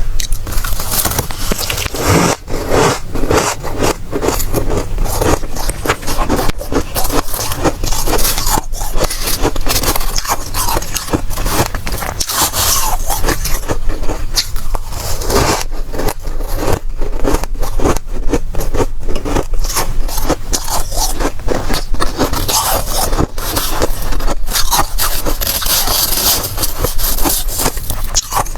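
Close-miked crunching of dry, soft freezer frost being bitten and chewed: a dense, unbroken run of crackling crunches.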